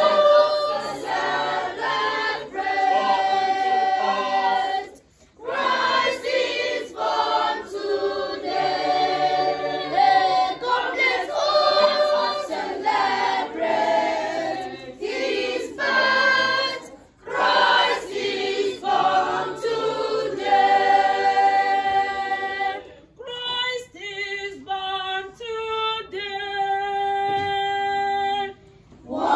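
A youth choir of children and teenagers singing together in phrases, with short breaks between them.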